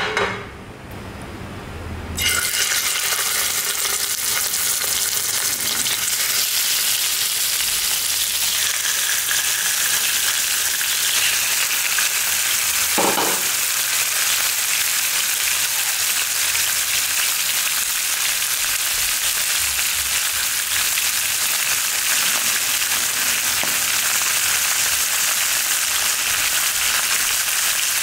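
Cubes of raw beef go into hot oil in a nonstick frying pan: a sudden, loud, steady sizzle starts about two seconds in and carries on. A short knock comes about halfway through.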